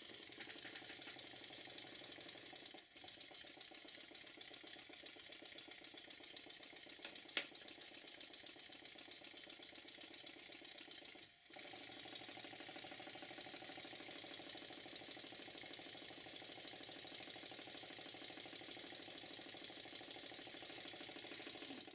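Stuart Double 10V twin-cylinder model steam engine running, a fast, even run of beats that dips out briefly twice. This is a test run after fine adjustment of the valve timing to make the beats even in both directions. A single sharp click sounds about seven seconds in.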